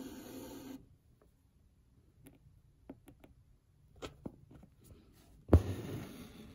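Hand embroidery on a twill cap in a hoop. The needle pops through the fabric and the embroidery floss rasps as it is drawn through, once at the start and again about five and a half seconds in. Faint small ticks come in between.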